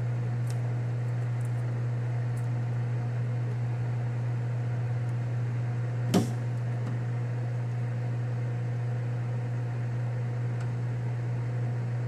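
Steady low electrical machine hum from the shop, with one sharp metallic click about halfway through as a steel rule is set against the part in the lathe collet.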